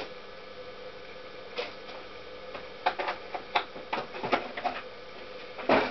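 Scattered light clicks and knocks of metal parts and hand tools being handled during engine reassembly, with a louder clatter near the end. A faint steady hum runs underneath.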